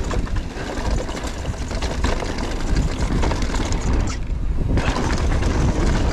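Wind buffeting the camera microphone over the rattle and clatter of mountain bike tyres and frame on a rough dirt trail at speed. About four seconds in, the clatter briefly drops out while the low wind rumble carries on.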